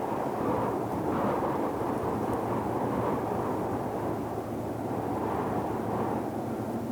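Deep ocean white noise: a steady, low rushing sound that swells gently and eases every couple of seconds.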